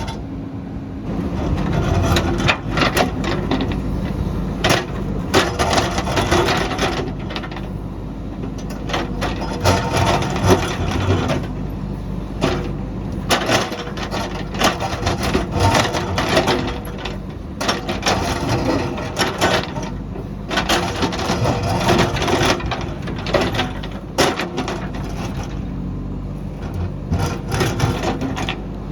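JCB backhoe loader's diesel engine running steadily while its bucket digs into rocky ground, with irregular cracks, knocks and clatter of breaking and shifting rock throughout.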